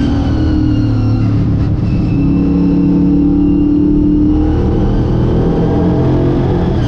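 Late model stock car's V8 engine heard from inside the car at racing speed: the engine note holds high, eases off about four and a half seconds in, and builds again near the end.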